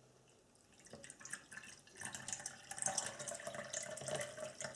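Water poured from a plastic measuring jug into a cut-down plastic bottle, a splashing trickle that starts about two seconds in, after a few light handling knocks.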